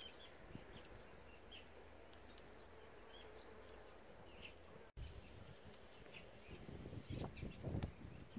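A bee buzzes with a steady hum over the first couple of seconds, then fades, while small birds chirp in short scattered calls. About five seconds in, the sound breaks off for an instant. After that, low rumbling bursts become the loudest sound near the end.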